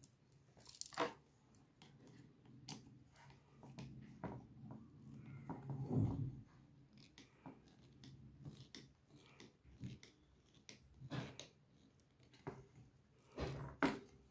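Wooden sticks and the wooden base being handled and fitted together by hand: scattered light knocks and clicks of wood on wood, with a louder knock about six seconds in and a few more near the end, over a faint low hum.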